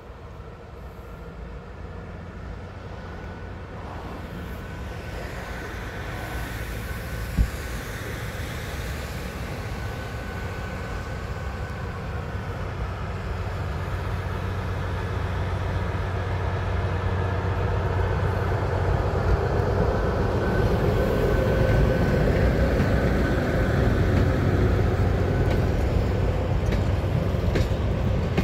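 DB class V 60 diesel-hydraulic shunting locomotive running under power as it hauls a short train of old coaches past, its steady engine drone growing louder as it approaches, then the wheels of the coaches rolling on the rails. A single sharp knock sounds about seven seconds in.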